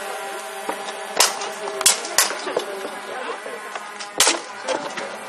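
Swords striking shields and plate armour in an armoured combat bout: a few sharp clangs and knocks, the loudest about four seconds in.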